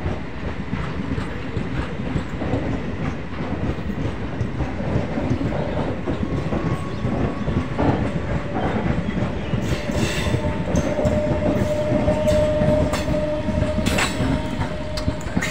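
Coaches of a local passenger train rolling past close by, a steady rumble with the wheels clattering over the rail joints. Sharp clicks and a thin steady whine join in during the second half.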